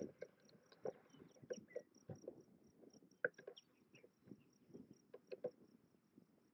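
Faint, evenly repeated high chirps of an insect, about five a second, over scattered light knocks and clicks from the handheld camera being moved.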